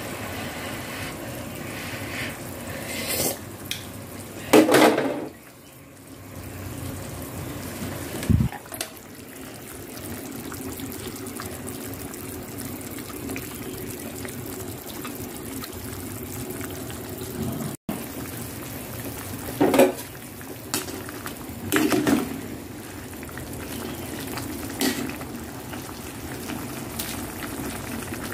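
A pot of soup boiling on a gas stove, bubbling steadily, with a few short clinks and knocks of a metal ladle against the stainless steel pot.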